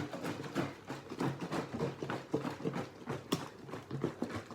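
Plastic Gatorade bottles of hot water and soap being shaken hard, the liquid sloshing and knocking inside in a quick rhythm of about four strokes a second, with one sharper click about three seconds in.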